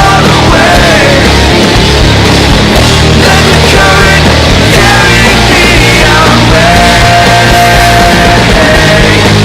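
Loud, dense rock music with a sung melody over distorted guitars and bass.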